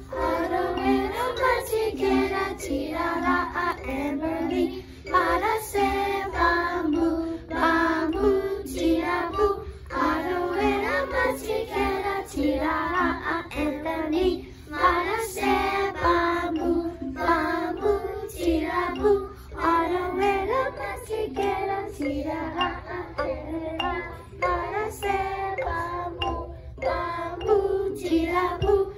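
Young girls singing a song into a microphone, their voices carrying on continuously with short breaks between phrases.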